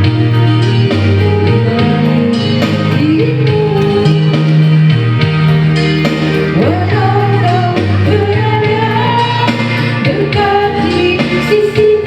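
A song playing: a singing voice over an instrumental backing with a steady, stepping bass line.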